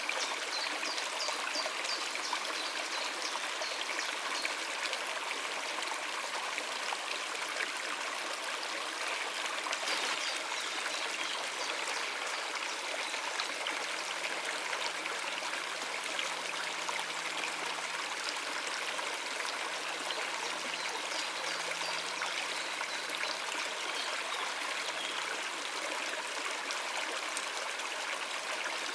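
Steady rush of flowing water, a stream or cascade running continuously with a splashing, trickling texture.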